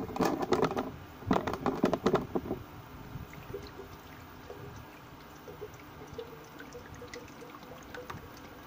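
Water poured from a plastic bottle into an ultrasonic humidifier's empty plastic reservoir: loud, uneven splashing for the first two seconds or so, then a steadier, quieter pour as the base fills.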